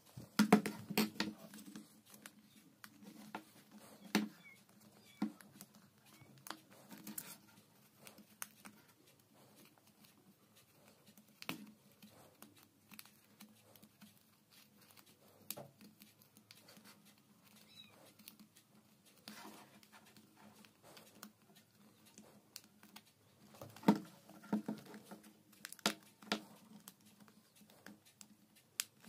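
Handling noise of a leatherette headphone earpad being pressed and tucked onto its plastic ear cup: scattered soft clicks, taps and rubbing. The taps come in two busy clusters, just after the start and again a few seconds before the end, over a faint steady hum.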